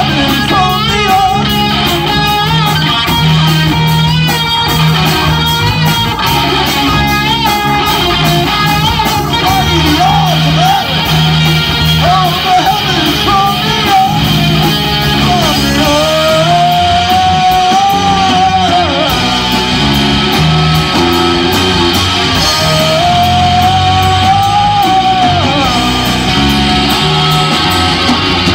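Live rock band playing loud on electric guitar, electric bass and drums. A wavering lead melody holds two long bent notes, one about halfway through and one near the end.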